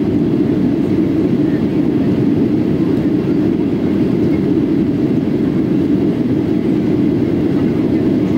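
Steady cabin noise inside a Boeing 737-800 in its climb after takeoff: its CFM56 engines and the airflow heard as an even, unbroken rumble.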